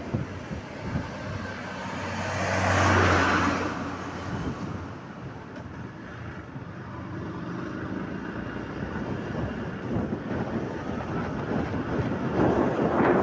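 Motorcycle riding along a road: its engine running steadily under road and wind noise. A louder rush of noise swells and fades about three seconds in.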